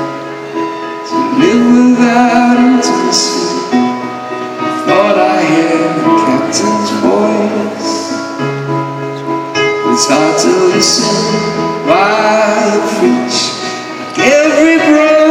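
Live concert music: piano chords held under a man's voice singing phrase by phrase.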